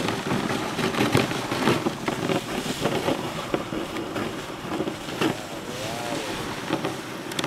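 Dog sled runners hissing and rattling over packed snow, with frequent small knocks from the sled frame and wind on the microphone. A short rising-and-falling call is heard about six seconds in.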